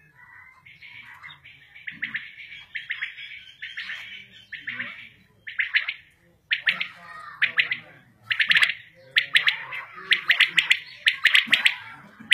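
Several caged common quails calling over and over. Their short, rapidly pulsed calls overlap one another, and they grow louder and come thicker from about halfway through.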